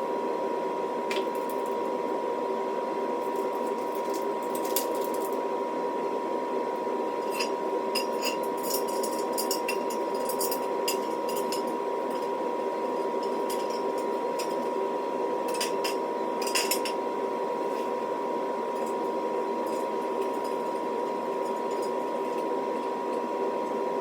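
Steel squat-rack parts and hardware clinking and tapping, in scattered sharp knocks that come thickest in the middle, over a steady hum with a constant high tone.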